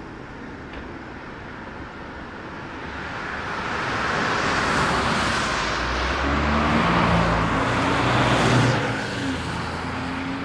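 BMW 4 Series Gran Coupe prototype driving past: tyre and road noise swells over several seconds. The engine's steady hum comes in about six seconds in, peaks near the end and then eases off.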